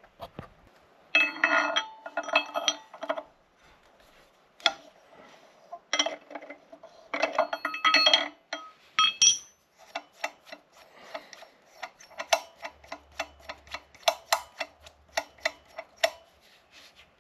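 Metal-on-metal clinks and clicks that ring on, from work on the quad's rear axle: clusters of clinks in the first half, then a run of regular single clicks, about two or three a second.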